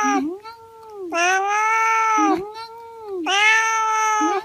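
A cat meowing over and over in long, drawn-out calls of steady pitch, loud ones of about a second each alternating with softer, shorter meows between them.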